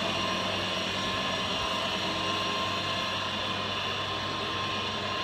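Steady machinery hum with a thin, constant high whine over a noisy drone, unchanging throughout.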